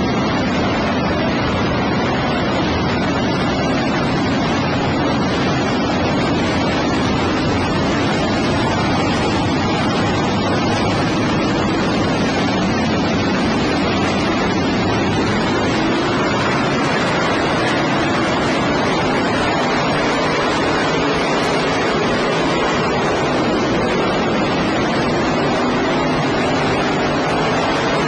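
Pack of sprint car engines running at race speed, heard as one constant, distorted roar with no single car standing out. The sound is a poor-quality, overloaded recording.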